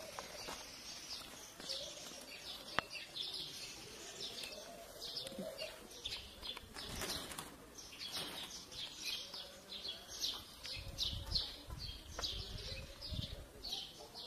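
Small birds chirping busily, many short high chirps in quick succession, with a dove cooing faintly underneath.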